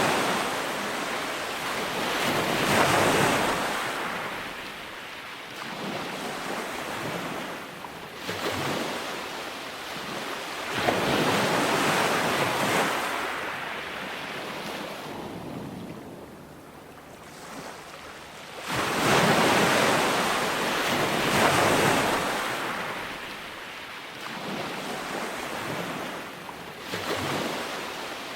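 Ocean waves breaking and washing up a beach, each one swelling and then fading over several seconds, with a lull in the middle before the surf builds again.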